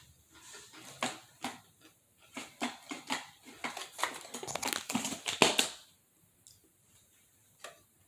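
Pringles potato crisps crunched and chewed close to the microphone: irregular sharp crackles for about five seconds, stopping about six seconds in.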